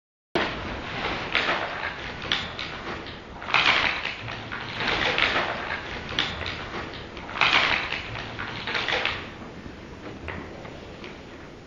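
A sheet of paper crumpled and rustled by hand, an irregular crackling with several louder crinkling swells; it starts suddenly about half a second in and dies down near the end.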